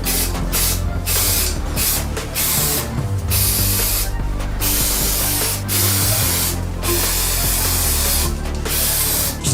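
Aerosol spray-paint can spraying in a run of short bursts, each lasting up to about a second, with brief breaks between them.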